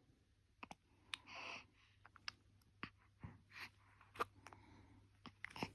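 Faint newborn hiccups: small clicks and soft puffs of breath at irregular intervals, about a second apart, against a quiet room. They are the sign of the baby's diaphragm spasming.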